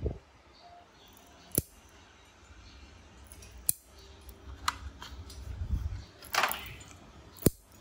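Steel lever nail clippers snipping a cat's claws: three sharp clicks a couple of seconds apart, with a fainter one between.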